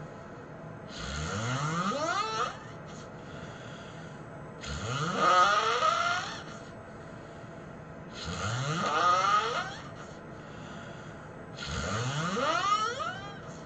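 A person snoring: four long snores about three and a half seconds apart, each rising in pitch as it goes.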